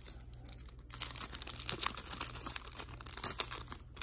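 Trading card pack wrapper crinkling and tearing as the pack is pulled open by hand. It starts about a second in as a run of sharp crackles.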